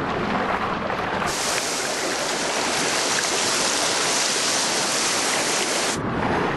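Sea surface splashing and fizzing with a mass of small anchoveta churning at the top of a bait ball: a dense, steady hiss that starts abruptly about a second in and cuts off abruptly near the end. Before it, a duller rush of water.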